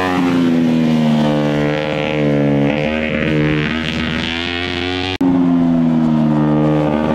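Kawasaki Ninja 250 parallel-twin engine in an off-road kart buggy, driving past with its pitch dipping and rising as the throttle is worked. It is held in fourth gear because the shifter is broken. The sound breaks off sharply about five seconds in, then resumes.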